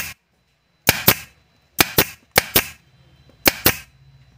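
Miles 80-16N pneumatic air stapler driving no. 80 staples into a block of hard wood: four firings, each a pair of sharp cracks close together, with quiet between them.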